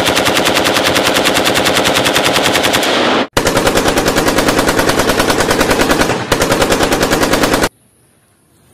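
Rapid automatic gunfire at about ten shots a second, in two long bursts of roughly three and four seconds, the second briefly interrupted near its end.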